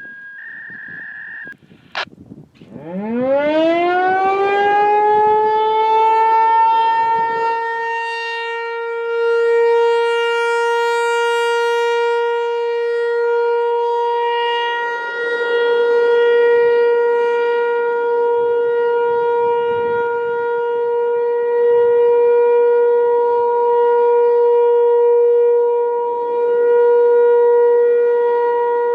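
American Signal T-135 outdoor warning siren winding up, its pitch rising over about three seconds to a steady tone that it then holds, swelling and fading in loudness every few seconds. A brief high beep and a click come just before it starts.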